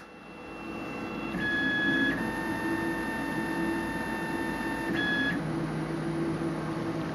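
Dimension BST 768 3D printer initializing: its motors whine in a steady high tone for about four seconds, the pitch stepping up shortly after the start and back down just before it stops, over the machine's steady hum. A lower hum comes in as the whine stops.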